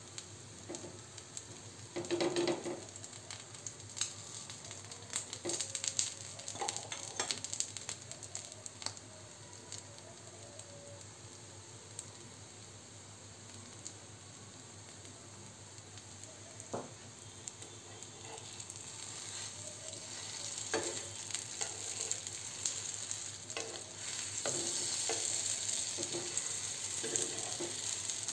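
Aloo-makhana tikkis sizzling as they shallow-fry in desi ghee on a nonstick tawa, with light clicks and scrapes from a spoon and spatula against the pan. The sizzle grows louder about three-quarters of the way in.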